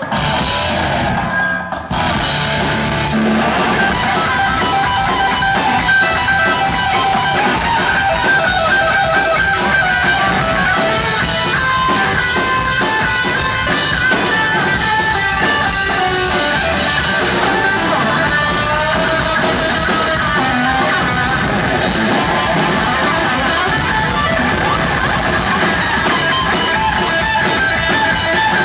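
Heavy metal band playing live: an electric guitar lead of quick runs of notes over the drum kit and the rest of the band. A few sharp hits open it, and the full band comes in about two seconds in.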